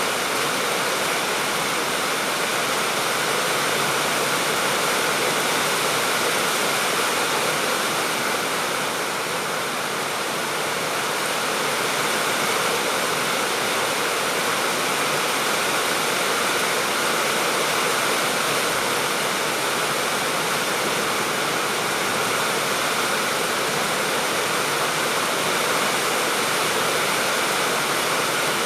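Steady, dense rainfall: a continuous even hiss of falling rain, easing slightly for a moment about ten seconds in.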